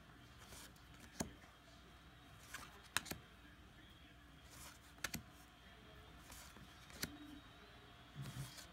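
A stack of paper trading cards being flipped through one at a time, each card moved to the back of the stack with a sharp click: four clicks about two seconds apart.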